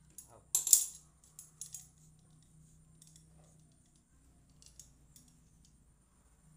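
Small metal parts clinking together in a sharp cluster about half a second in, followed by a few lighter scattered clicks over a faint low hum.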